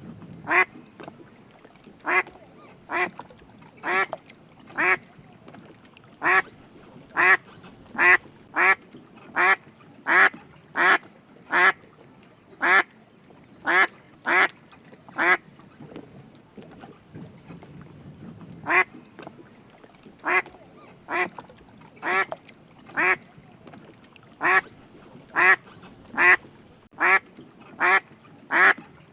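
A duck quacking over and over, short nasal quacks about one a second, in runs broken by brief pauses and one longer pause of about three seconds midway.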